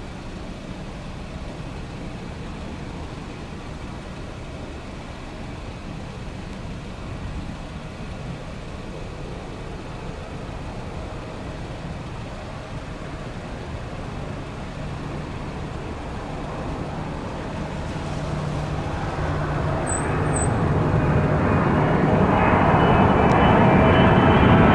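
Boeing 777-300ER jet engines on approach, growing from a distant low rumble into a loud whine with steady tones as the airliner closes in over the last several seconds.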